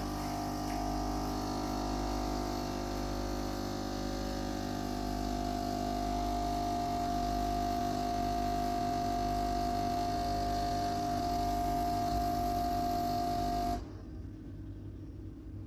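Philips 2300 automatic coffee machine's pump running as it brews coffee into the cup: a steady humming drone with a clear tone, cutting off suddenly near the end when brewing finishes.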